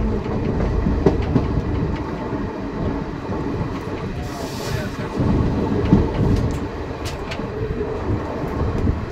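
Passenger coach of an Indian Railways express train rolling along the track: a steady rumble of wheels on rails with clickety-clack clicks, and a brief hiss about four and a half seconds in.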